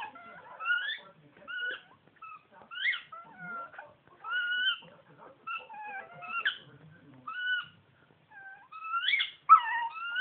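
Dog whining: a rapid string of short, high-pitched squeaky whines, many rising or falling in pitch, the loudest ones near the end.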